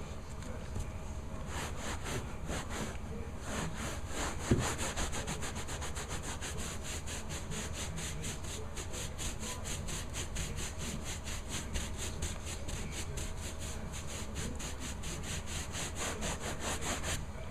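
Rapid back-and-forth hand scrubbing: a steady run of quick rubbing strokes, several a second, starting about a second and a half in. A single thump comes about four and a half seconds in.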